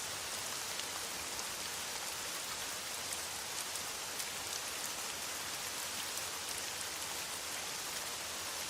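Steady rain falling on a metal roof, a dense even hiss with many small drop ticks.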